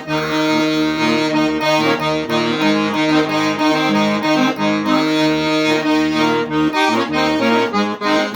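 Piano accordion (gaita) played vigorously: held chords and melody over a bass line that changes about twice a second. The bellows has a hole in it.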